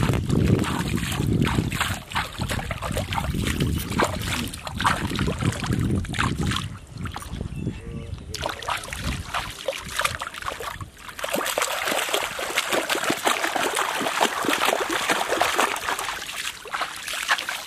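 Shallow river water splashed and scooped by hand at the bank, with irregular small splashes and trickles; the splashing grows busier in the last few seconds as bare feet kick in the water.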